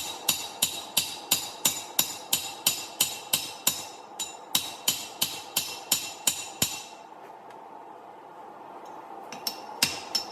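Hand hammer striking steel on an anvil in a steady rhythm of about three ringing blows a second, forging a hammer head. The blows stop for a couple of seconds past the middle, then start again near the end, with a steady hum underneath.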